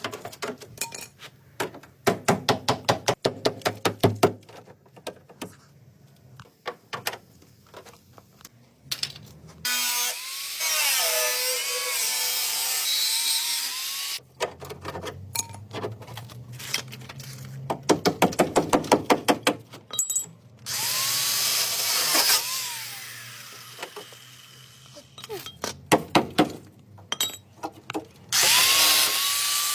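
Workshop tool sounds: quick runs of sharp metal-sounding strikes, about seven a second, alternate with several-second bursts of a power tool running with a whine that dips and rises in pitch.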